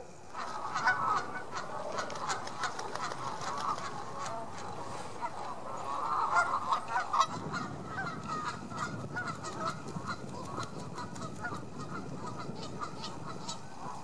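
A flock of Canada geese honking, many overlapping calls, busiest about a second in and again around six to seven seconds.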